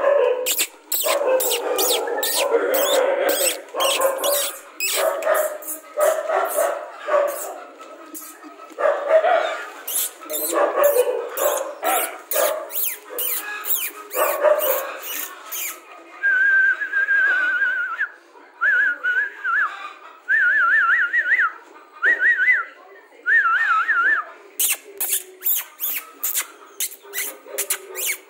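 Rajapalayam puppies whining and yelping among rapid sharp clicks. About halfway through, a person whistles five short wavering phrases, then the clicks return.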